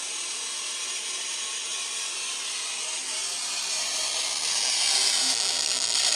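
Small speaker driven by a breadboard Class D amplifier, playing its audio input as a harsh, hissing buzz with little clear music in it, the poor sound quality of this revision of the amplifier. It gets louder about two-thirds of the way through.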